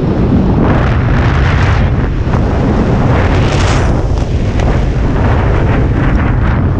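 Wind buffeting a handheld camera's microphone under a tandem parachute canopy in flight: a loud, steady rush with a heavy low end.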